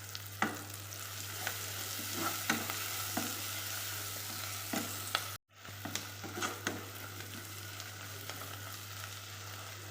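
Biryani masala, with fresh coriander and mint leaves just added, sizzling in a pan as a spoon stirs it, knocking and scraping against the pan now and then. The sound drops out for a moment about five and a half seconds in.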